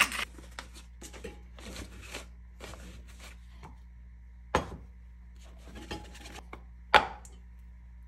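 A metal spoon scooping thick plain yogurt from a plastic tub and scraping it into a paper coffee filter in a dripper to strain it: soft scraping and squelching, with two sharp knocks of the spoon on the tub or dripper, about four and a half seconds in and again near seven seconds, the second the loudest.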